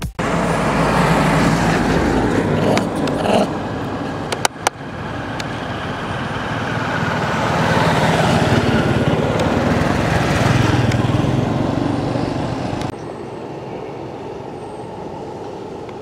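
Road traffic going by close to the microphone: a steady rumble and rush of passing motor vehicles. It swells and fades, with a few sharp clicks a few seconds in. Near the end the noise drops suddenly to a quieter hum.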